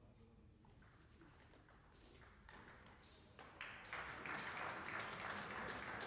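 Table tennis ball clicking off bat and table during a short rally, a few separate clicks. About three and a half seconds in, spectators break into applause that runs on.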